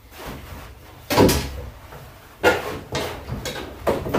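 Fishing rods being handled at the kayak's rod holders as one rod is put back and another pulled out: several knocks and clunks, the loudest about a second in.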